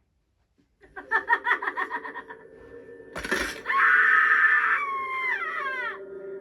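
Spirit Halloween 'The Widow' animatronic triggered in its jump-scare demo: its speaker plays a quick pulsing sound, then a sudden burst of noise and a loud scream held for about a second that slides down in pitch. A steady low hum runs underneath from about a second in.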